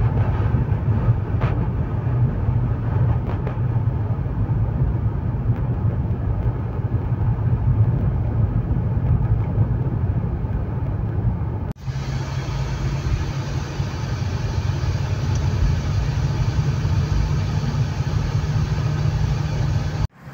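A car driving, heard from inside the cabin: a steady low rumble of engine and road noise. It drops out for a moment about twelve seconds in.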